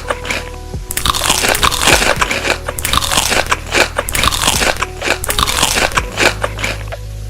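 Close-miked crunching of crisp food being bitten and chewed: dense, rapid crackling, with a brief lull just after the start and a fade near the end.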